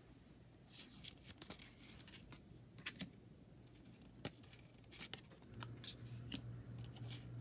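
Faint handling of tarot cards and their packaging: soft rustling with a few sharp little clicks and taps. A low steady hum comes in about five and a half seconds in.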